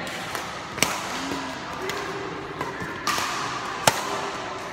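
Badminton rackets hitting a shuttlecock in a rally, several sharp cracks with the loudest about a second in and near four seconds in. Short squeaks of shoes on the court floor come between the hits.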